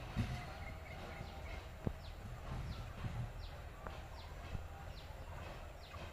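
A bird repeats a short, high, descending call about once every two-thirds of a second. Under it, a faint low rumble from the departing Class S10 diesel multiple unit fades in the first second or so. There is a single sharp click just before two seconds in.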